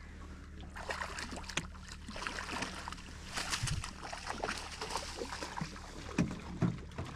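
Water sloshing against a small fishing boat, with scattered knocks and rustles of handling aboard as a trout is brought in.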